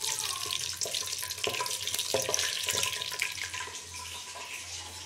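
Cumin seeds sizzling and crackling in hot ghee in a pot, a steady hiss full of small pops that eases off a little after about three and a half seconds.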